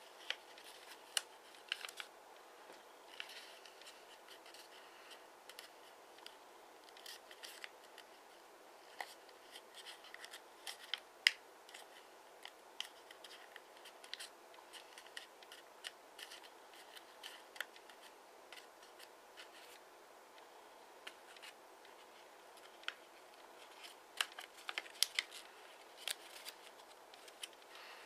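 Origami paper being folded, creased and tucked by hand: scattered sharp crackles and soft rustles of stiff paper. There is a louder snap about eleven seconds in and a quick run of crackles near the end.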